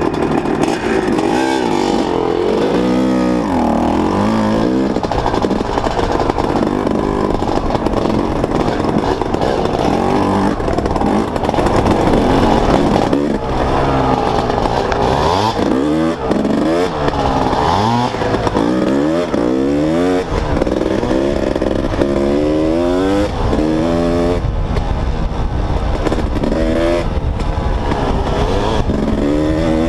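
Two-stroke dirt bike engine, close to a helmet-mounted camera, revving up and down continuously as it is ridden, its pitch rising and falling every second or two with throttle and gear changes.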